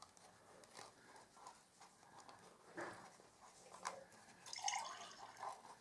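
Faint handling sounds of cardstock and ribbon: light ticks and rustles as ribbon is pulled through punched holes in a folded paper box, with a slightly louder rustle about three-quarters of the way through.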